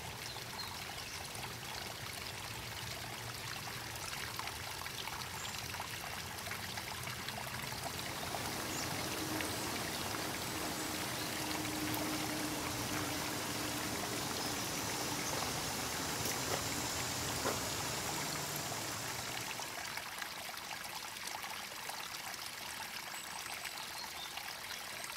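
Stream water flowing and trickling steadily, an even rushing wash.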